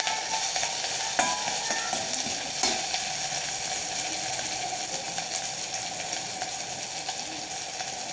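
Ghee sizzling steadily in a pan as nelanelli (Phyllanthus amarus) leaves fry with green chillies, bird's eye chillies and cumin seeds. A couple of light clicks sound about one and two and a half seconds in.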